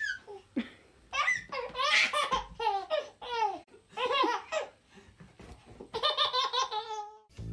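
Toddler laughing in several bursts, with a quick run of giggles near the end.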